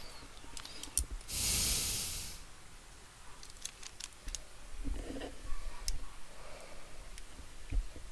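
A short hiss from a spray can, lasting about a second, followed by scattered light clicks and taps of small tools on a laptop.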